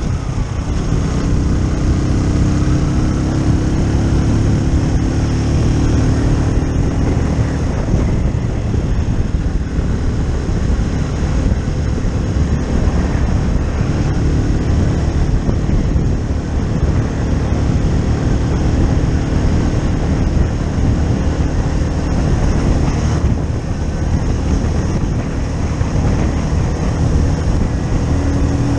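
Keeway Superlight 125 motorcycle engine running on the road, its pitch rising and falling with the throttle, over a steady rush of wind noise.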